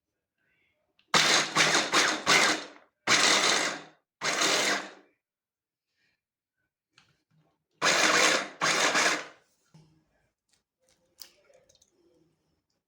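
Electric kitchen blender run in short pulses of about a second each: a group of several pulses about a second in, then two more around eight seconds in.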